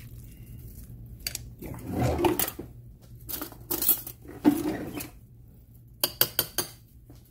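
Metal spoons scraping and clinking against a glass mixing bowl as a salmon patty mixture is stirred, with a quick run of sharp clinks near the end.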